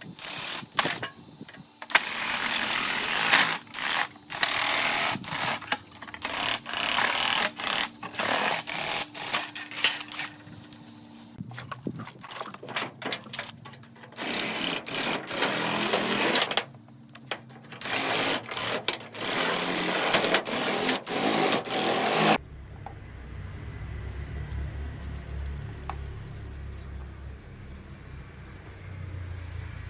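An electric drill driving a homemade shear attachment, cutting corrugated sheet metal in loud bursts with rapid clicking over the motor's whine. Near the end it changes suddenly to a quieter low rumble.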